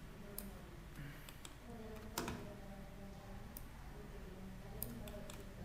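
Computer mouse and keyboard clicks: about eight sharp clicks spread unevenly over a few seconds, the loudest about two seconds in.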